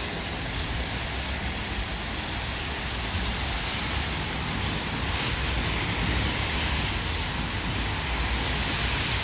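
WashTec SoftCare Pro automatic car wash working over a car: a steady rushing noise with a low rumble underneath.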